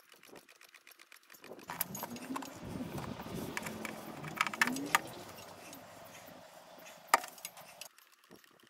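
Hand fluid pump being worked to push gear oil through a hose into a car gearbox's fill hole: rattling clicks and a couple of short rising squeaks from about two to five seconds in, then one sharp click a couple of seconds later.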